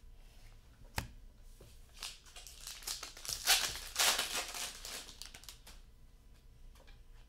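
A single sharp tap about a second in, then the foil wrapper of a trading card pack crinkling and tearing for about three seconds, loudest in the middle.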